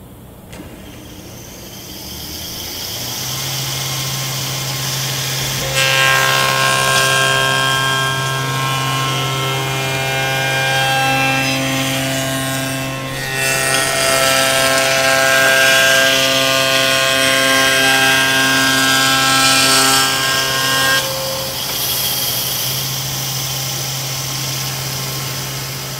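Spindle moulder starting up, its motor running up to speed over a few seconds. It then moulds a curved workpiece held in a jig, the cutter working the wood for about fifteen seconds. The cut ends a few seconds before the end and the machine keeps running.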